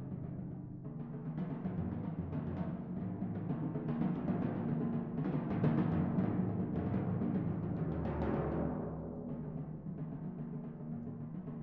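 Four timpani played solo with mallets: a dense run of strokes and rolls over ringing drum tones that builds to its loudest about six seconds in, then falls back to softer playing.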